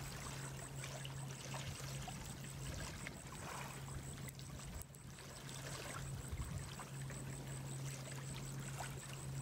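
Wood campfire burning, a soft rushing hiss with faint irregular crackles and pops.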